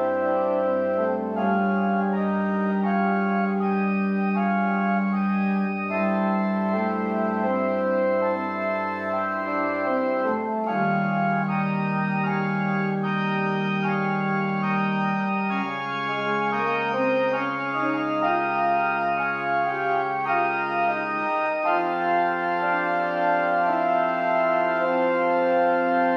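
Organ playing a slow piece of long sustained chords over held bass notes, the bass shifting to a new note about 10, 16 and 21 seconds in.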